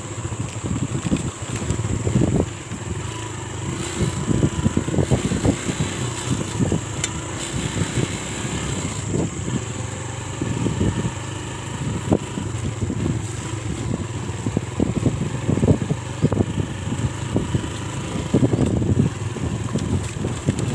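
Trail motorcycle engine running at low speed on a rough dirt track, with frequent irregular knocks and jolts from the bumps.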